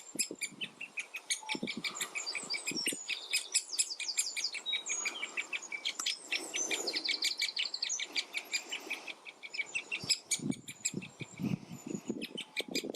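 Great spotted woodpecker nestling calling from the nest hole: a fast, even run of short, high calls, about five a second, under the song of other woodland birds.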